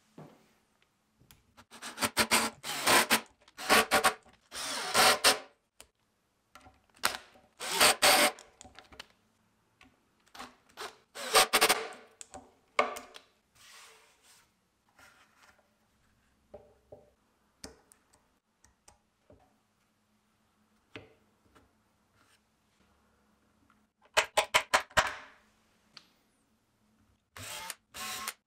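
Woofer mounting screws being driven into a wooden speaker baffle with a power driver, in several short bursts with small handling knocks between them. A quick run of clicks follows, and near the end a drill starts boring a pilot hole into the wood for the tweeter.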